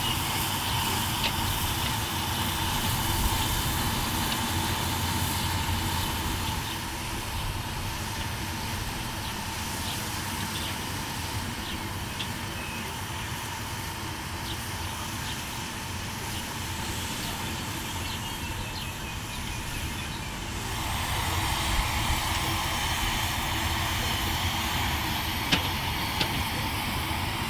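A 7.25-inch gauge live steam model of a Union Pacific Big Boy locomotive running, heard as a steady hiss and low rumble with a few faint clicks. The sound eases off about a third of the way in and swells again near the end.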